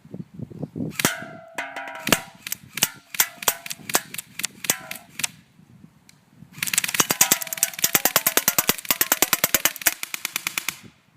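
Airsoft gun firing at a can: a string of separate shots, then after a short pause a long rapid burst of about ten shots a second.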